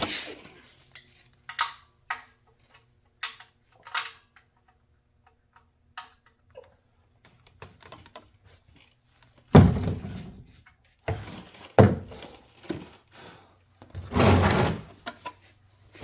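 Scattered metal clinks and knocks of a socket and breaker bar being fitted to a drain plug, with louder thuds and scraping several times in the second half from working under the car.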